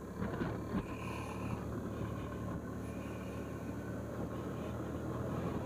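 Suzuki scooter's single-cylinder engine running steadily while riding, a low even hum, with a couple of light knocks about a second in.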